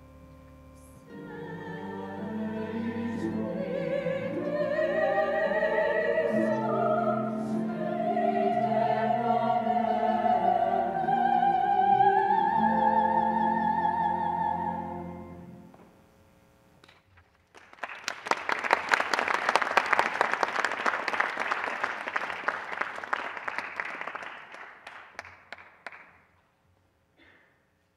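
Soprano soloist singing with a choir over sustained low organ-type accompaniment, the music ending about fifteen seconds in. After a short pause an audience claps for about eight seconds, the applause fading out near the end.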